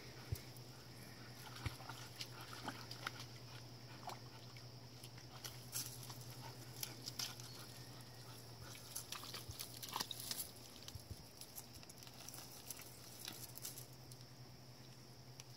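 Two dogs wading through a shallow, muddy swamp creek: scattered soft splashes, squelches and clicks of paws in water and mud, over a faint steady hiss.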